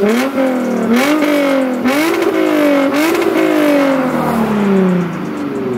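Lexus IS350's 3.5-litre V6 revved in about four quick throttle blips roughly a second apart, each climbing fast and dying away; the last one falls off slowly over about two seconds.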